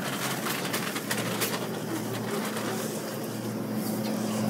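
Supermarket room tone: a steady low hum from the refrigerated display cases, with a second, higher hum note growing stronger about halfway through, and a couple of faint clicks.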